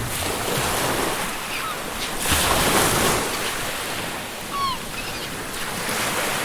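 Ocean surf washing onto a beach, with one wave breaking more loudly a couple of seconds in. A few short seagull calls sound over it, the clearest a little past the middle.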